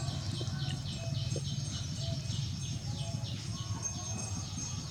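A bird chirping: a rapid, even series of short falling chirps, about three a second, over a steady low hum.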